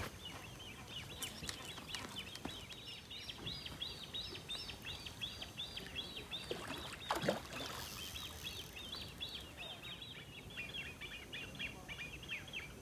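Bird chattering: a continuous rapid string of short high chirps, with a single short knock about seven seconds in.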